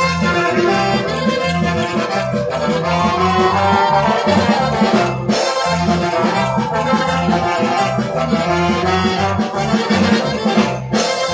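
Brass band playing a march, with a melody carried by trumpets and trombones over a steady bass beat.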